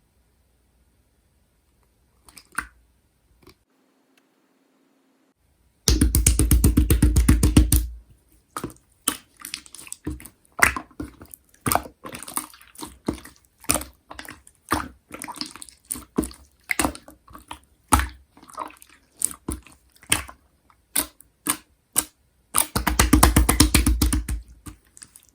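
Clear slime being handled by hand, making wet, sticky clicks and pops as it is pressed and pulled. There are quick runs of rapid popping about six seconds in and again near the end.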